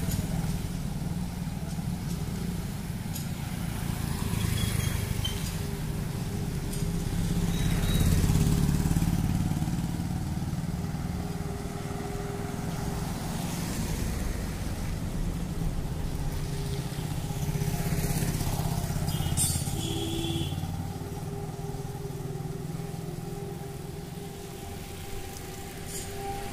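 Motorcycles running along a street, the engine rumble swelling and fading as they pass.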